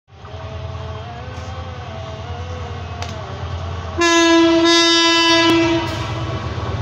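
Diesel locomotive approaching with a steady low engine rumble, then sounding its horn in one loud blast about four seconds in, lasting under two seconds.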